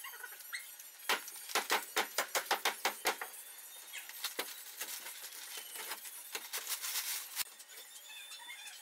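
Wall demolition sounds: a quick run of sharp knocks and cracks about a second in, then scattered single knocks and a short scraping rustle near seven seconds.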